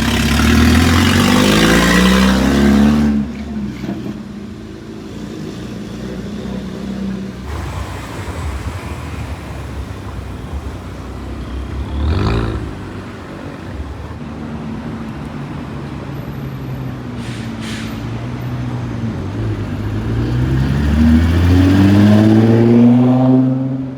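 Car engines accelerating past on a city road. One climbs in pitch hard at the start and cuts off about three seconds in. Another passes briefly midway, and a loud rising acceleration builds near the end.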